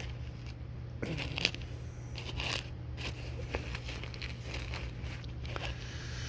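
A pet brush's bristles scratching and rolling through the fur ruff of a down parka, with the nylon shell crinkling, in a series of separate short strokes over a faint steady low hum.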